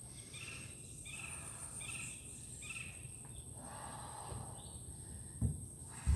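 Birds calling in forest: a run of short, repeated high chirps in the first few seconds over a steady high-pitched insect drone, with two low thumps near the end.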